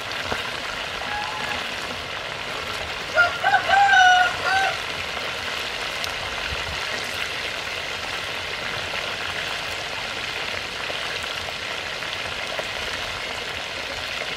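Chicken wings deep-frying in hot soybean oil: a steady sizzle and bubbling. A short pitched call cuts in about three seconds in and lasts about a second and a half, louder than the frying.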